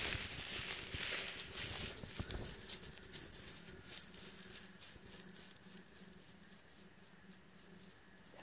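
Footsteps and rustling through dry, matted hayfield grass, a scattered crunching that dies away after the first few seconds into a quiet outdoor background.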